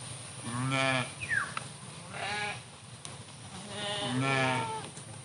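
Garol sheep bleating: three calls, about a second in, in the middle and near the end.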